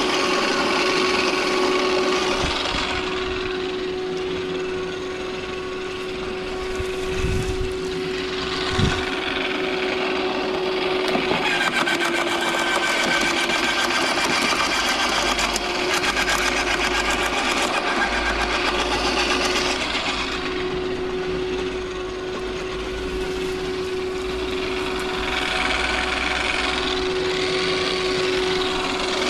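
Corded electric garden shredder running with a steady motor whine while branches are fed in and chipped, the chipping heard as a grinding crackle. Its pitch drops slightly under load about 11 seconds in.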